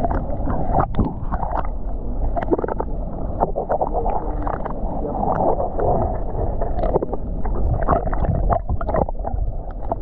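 Muffled underwater noise picked up by a submerged GoPro: a steady low rush of moving water, broken by irregular short knocks and crackles.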